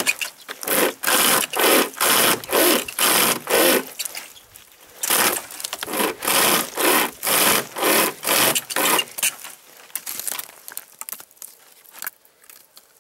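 A homemade pocket chainsaw, a bare saw chain pulled back and forth by webbing handles, rasping through a dry dead log at about two strokes a second. There are two runs of strokes with a short pause about four seconds in. The sawing stops about nine seconds in, leaving faint rustling.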